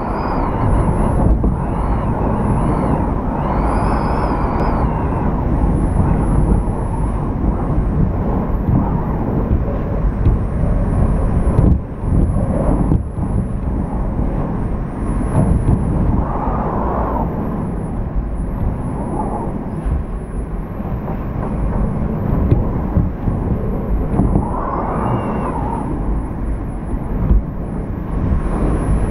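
Typhoon-force wind gusting with driving rain, heard through a window: a loud, continuous rumbling rush. The wind whistles, rising and falling in pitch a few times.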